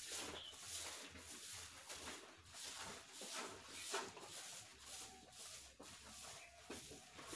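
Faint swishing of a short hand broom (jhadu) sweeping a floor, in repeated strokes about two a second.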